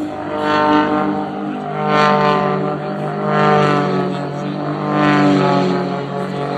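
Aircraft engine droning steadily, its hum swelling and fading about every one and a half seconds.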